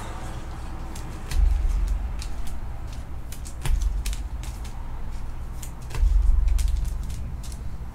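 Scattered light clicks and rustles of trading cards and packaging being handled, broken by three low rumbling thumps a second or so long, the loudest sounds here.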